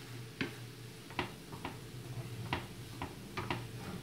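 Plastic slotted spatula knocking and scraping against a non-stick frying pan while turning an omelette: about seven sharp, irregular taps, the loudest about two and a half seconds in, over a steady low hum.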